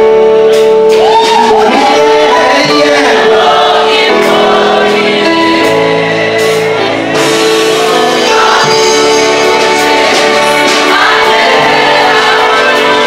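Gospel music: voices singing over long held chords.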